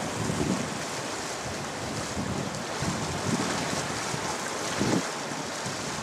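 Wind buffeting the microphone in a few low gusts over a steady hiss of river water and waves.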